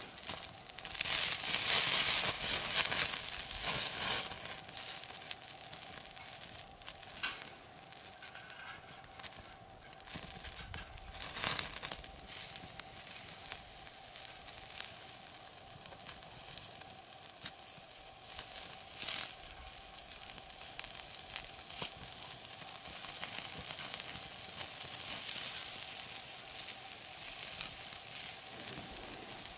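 Meat sizzling on a wire grill over a glowing coal briquette, with frequent sharp pops and crackles; the sizzling is loudest about one to three seconds in.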